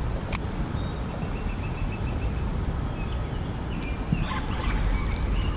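Steady low rumble of wind and river water, with a bird chirping in short, quick series of high notes twice.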